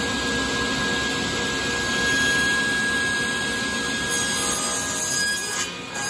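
SawStop table saw running with its standard blade, cutting a board in repeated shallow passes to notch out a dado, with a steady high blade whine. The cutting noise swells about two seconds in and eases off near the end.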